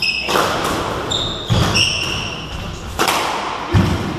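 A squash rally: the ball struck by rackets and hitting the court walls four times with sharp, echoing cracks, while court shoes squeak on the wooden floor.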